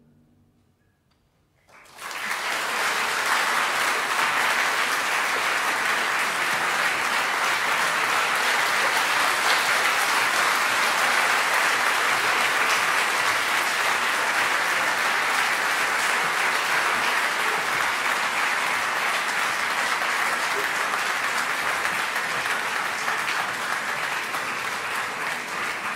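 Audience applauding: near silence, then clapping starts about two seconds in and goes on steadily, easing slightly near the end.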